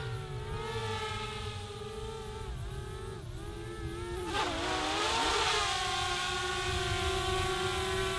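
DJI Spark quadcopter's propellers whining, the pitch wavering as the drone manoeuvres. About four seconds in the pitch dips sharply and climbs again, and the whine is louder after that.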